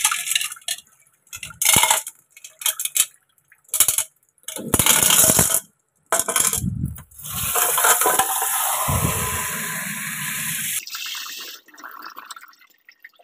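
Coloured pebbles rattling and clinking in a glass bowl as they are scrubbed and rinsed under a running tap, with water splashing into the sink, in short stretches broken by sudden silences. In the second half the tap water runs steadily for about three seconds, then stops.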